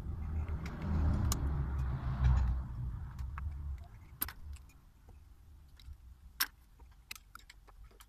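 A low rumble for the first few seconds, then a string of sharp metallic clicks and clinks as a motorcycle rear brake caliper, its bracket and its brake pads are handled and fitted together.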